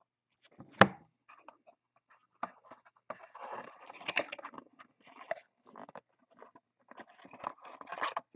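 Trading-card box and cards being handled: irregular scraping and rustling of cardboard and cards, with a sharp knock about a second in.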